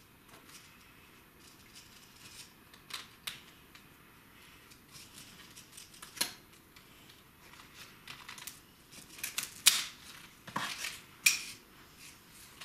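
Scattered sharp clicks and snips of scissors cutting a broken bird of paradise leaf, irregular and spaced out, with a cluster of louder clicks about nine to eleven seconds in.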